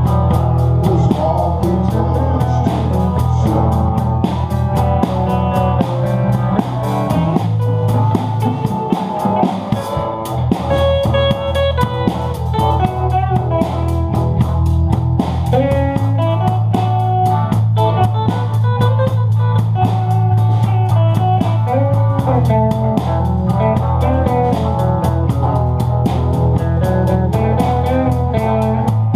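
Blues band playing an instrumental stretch: guitar picking a lead line over held bass notes that change with the chords, with drums keeping time.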